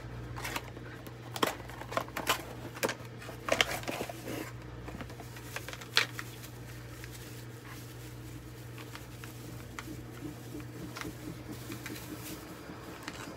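A small cardboard box and its packaging being opened and handled: rustling and clicking, busiest in the first half, with one sharp click about six seconds in, then quieter handling. A steady low hum runs underneath.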